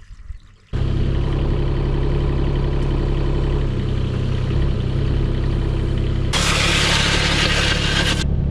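Mini excavator engine running steadily, starting abruptly less than a second in after a few faint knocks. Near the end a loud hiss rides over the engine for about two seconds.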